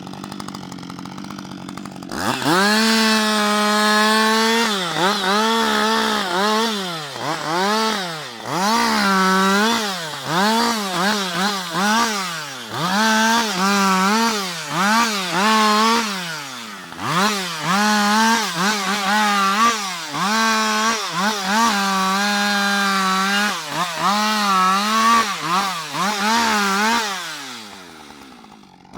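Husqvarna 560 XP two-stroke chainsaw idling, then opened up to full throttle about two seconds in. Its pitch keeps dipping and recovering as the chain bogs down in the wood and frees up again, cutting through a fallen tree. It drops back toward idle near the end.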